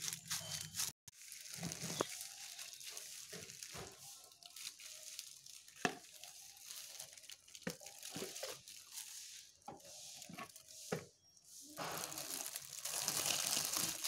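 Thin plastic sheet crinkling and tearing as it is peeled away from a hardened straw-and-cement bird nest, with dry straw crackling as it is handled. Scattered sharp crackles, and the rustling grows louder and more continuous near the end.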